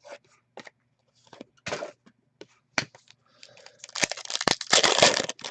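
Trading card packaging being handled: scattered clicks and rustles, then from about three and a half seconds in a louder stretch of crinkling and tearing as a foil card pack wrapper is ripped open.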